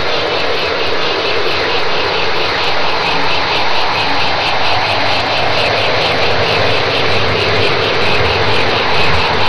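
Loud, steady wash of noise with a jet-like character, and a slow sweep that dips in pitch and rises again.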